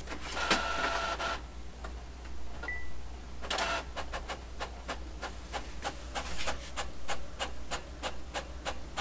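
Epson L6270 EcoTank inkjet printer printing a test page. First comes about a second of motor noise with a steady whine, then a short high beep. From about three and a half seconds in there is an even run of short, rapid mechanical strokes, several a second.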